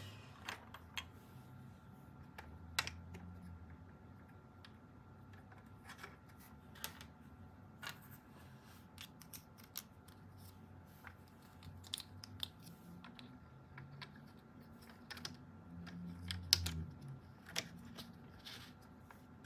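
Light, irregular clicks and taps of small plastic Fischertechnik construction parts being handled and snapped together as a gear tower and axle are assembled.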